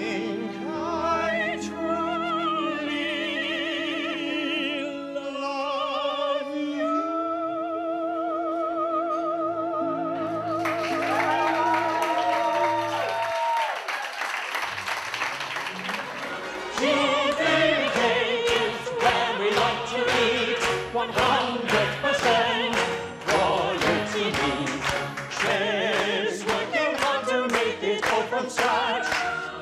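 Operatic singing by several voices with a wide vibrato over low held notes. About a third of the way in, a burst of handclapping breaks in, and from about halfway on, steady rhythmic clapping runs along under the continuing singing.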